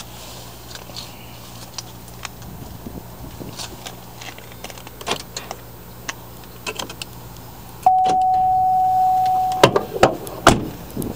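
Handling an open car door: scattered light clicks and a jingle of keys. Near the end a single steady electronic beep sounds for about two seconds, followed by several sharp knocks of the door and latch.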